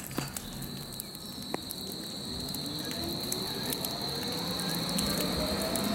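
Electric U-Bahn train running on the elevated line, growing louder, with a steady high whine and a lower motor whine rising in pitch as it gathers speed. Scattered sharp clicks and crackles sound throughout.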